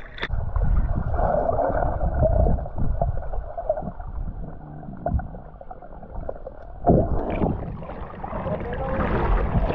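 Flowing river water heard underwater: a muffled rumble and gurgle with scattered knocks against the stones of the shallow riverbed. About seven seconds in, the sound opens up into the plain rush and splash of the river current at the surface.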